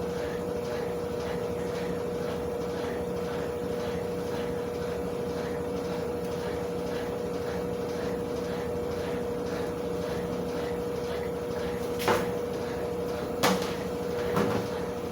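Consul top-load washing machine running with a steady motor hum and a faint regular pulsing, washing a load of jeans. Three short knocks come near the end.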